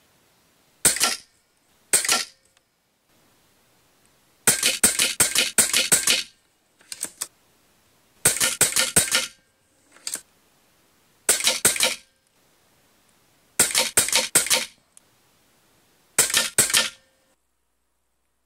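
Sharp clicks in quick bursts of four to six, each burst lasting about a second and coming every two to three seconds, with a few single clicks between.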